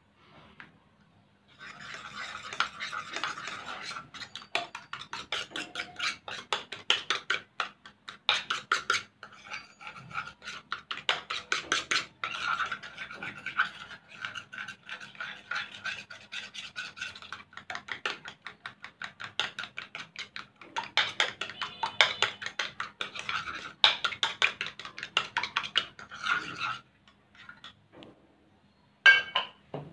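A metal spoon stirring thick blue glue in a bowl, scraping the bowl in quick, regular strokes with a few short pauses. The stirring stops shortly before the end, followed by a single sharp knock.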